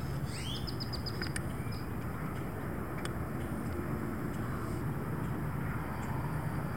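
A steady low rumble, with a short bird song near the start: a rising note followed by a quick run of about six high notes. A couple of faint clicks follow.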